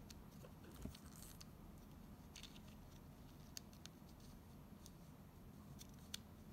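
Near silence, with a few faint small clicks and scratches as fingers turn the plastic slit dial of an optometer's astigmatism attachment.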